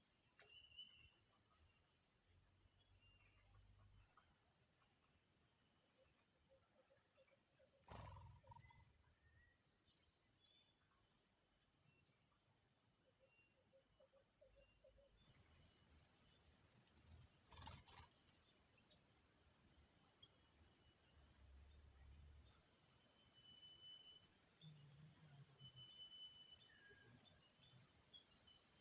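A steady, high-pitched insect drone in two even pitches, with one short, loud, shrill bird call about eight seconds in.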